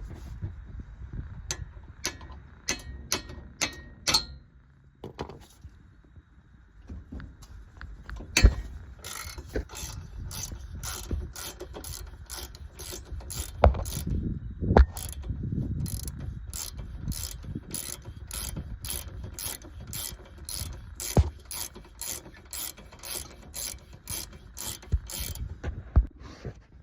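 A hand ratchet being worked to turn a tie rod end puller's screw. A few irregular clicks and knocks come first, then from about nine seconds in a long, even run of ratchet clicks, a little more than one a second.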